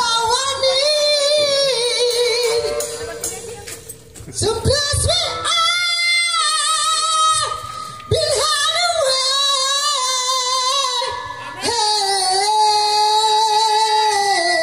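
Harmonica-sounding lead melody played into the vocal microphone: long held, wavering notes in four phrases with short breaks between them.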